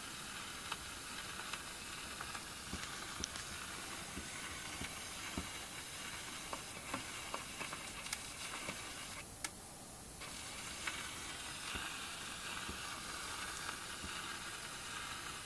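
Steady background hiss of the recording, with a few faint scattered clicks and a brief dip in the hiss about nine seconds in.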